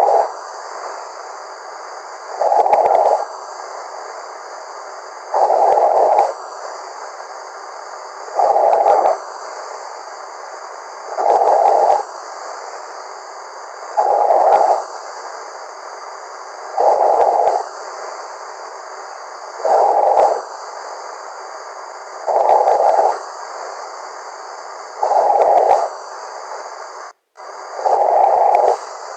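A man snoring in a slow, regular rhythm, about eleven snores each lasting about a second and coming roughly every three seconds. It is heard thinly over a voice-chat room's audio line, with a steady hiss between snores and a brief dropout near the end.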